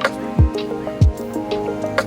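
Background music with a mellow, steady beat: low kick-drum thumps and sharp percussion clicks under sustained pitched notes.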